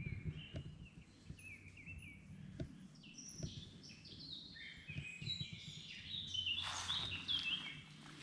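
Woodland birdsong: several songbirds singing quick, warbling phrases of short chirps, over faint crunching footsteps on a path. There is a brief rustle near the end.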